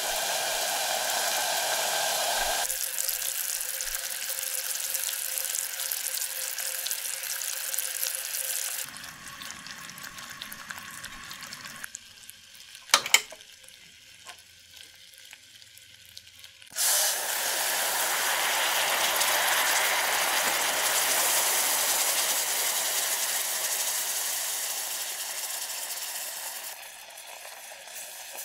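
Sugar syrup in a stainless steel saucepan boiling and sizzling as it turns to caramel, with two sharp clicks near the middle. Then a sudden loud hiss as cream goes into the hot caramel, which foams and seethes while it is whisked.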